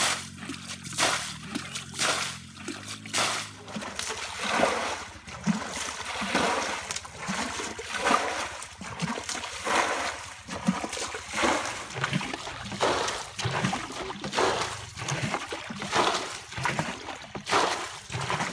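Muddy water splashing as a plastic bucket scoops it out of a shallow ditch and flings it onto the grass, about one throw a second, bailing the ditch dry.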